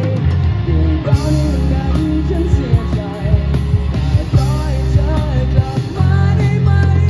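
Live rock band playing, loud and steady: electric guitars, bass, drums and keyboard, with a melody line wandering over the drum beat.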